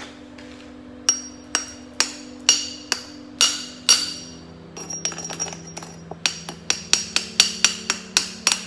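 Chipping hammer striking a steel plate to knock the slag off a fresh stick-weld stringer bead: sharp ringing metal blows, about two a second at first, then after a short lull a quicker run of blows near the end.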